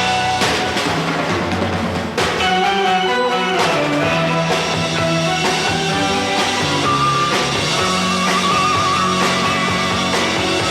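Live 1960s Japanese Group Sounds rock band playing an instrumental passage between sung verses, with guitar and drums.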